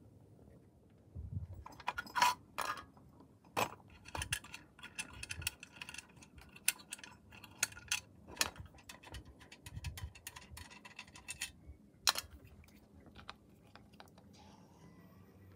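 Metallic clinks, knocks and rattles of a tinplate Mamod model traction engine being handled and set down on concrete, a string of sharp clicks with a few louder knocks.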